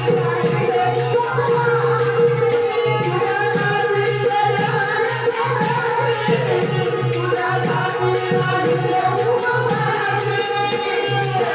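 Marathi devotional group singing of a gavlan bhajan, voices over a held steady drone note, with a regular drum beat and rhythmic jingling percussion.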